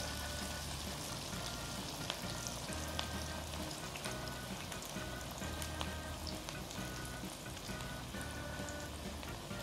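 Vegetable fritters (bakwan) of grated carrot and cabbage in flour batter deep-frying in hot oil, a steady sizzle scattered with small crackles and pops.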